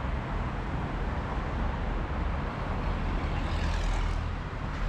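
Road traffic on a busy multi-lane road below: a steady rumble of passing cars, trucks and motorcycles, with a brief swell of tyre hiss about three and a half seconds in.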